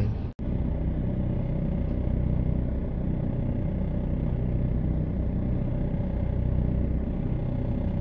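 Soviet T-150 tractor's six-cylinder diesel engine running steadily under load as it pulls a disc plow, with a brief cut-out just after the start.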